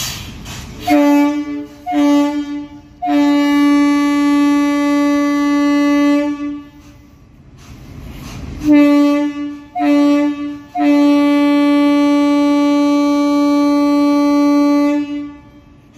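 Indian Railways locomotive horn sounding two short blasts and one long one, a pause, then the same two-short-one-long pattern again. It is a loud, single steady note.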